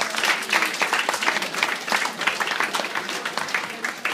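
Audience applauding: dense, irregular clapping from many hands.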